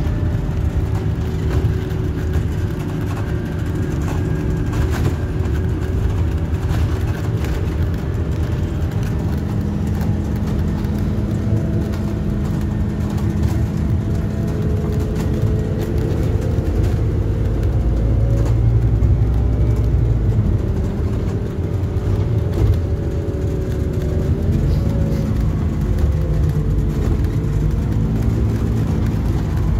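Inside a moving bus: the engine drone and road rumble, with the engine note slowly rising and falling as the bus speeds up and slows.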